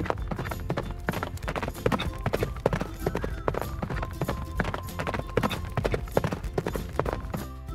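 Clip-clop of horse hooves over cheerful background music: many quick, irregular knocks.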